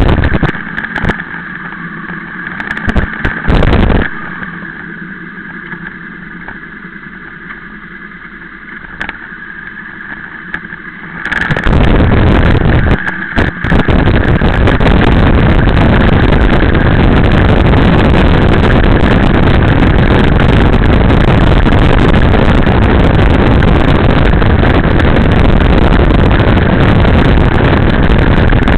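Motorcycle running along a road, quiet at first with a steady engine hum and a few short loud bumps. About twelve seconds in it turns into a loud, steady rush of wind and engine noise that overloads the microphone as the bike rides at speed.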